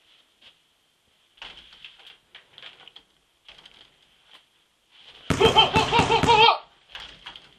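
A loud, high-pitched voice outburst with a wavering, pulsing pitch, about a second long, a little past five seconds in. Faint taps and shuffles come before and after it.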